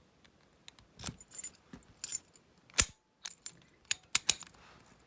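Viro 60mm brass padlock being handled, giving an irregular run of short metallic clicks and clinks, the loudest about three seconds in.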